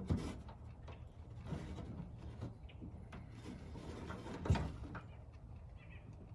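Light clicks and rattles of metal latch rods and plastic clips being worked by hand inside a pickup's tailgate, with one louder knock about four and a half seconds in.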